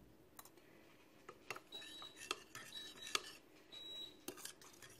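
Metal spoon stirring milk and yogurt in a ceramic dish, clinking and scraping against it. A coffee maker beeps three times, about once a second, in the middle.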